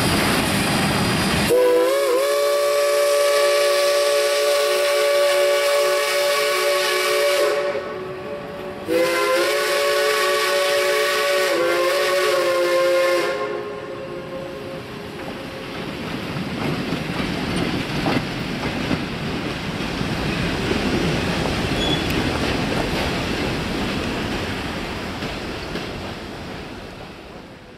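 Shay No. 5 geared steam locomotive blowing its chime steam whistle in two long blasts, several notes sounding together, the first about six seconds long and the second about four with a brief break. Its train then rolls by on the rails with a steady rumble that fades away near the end.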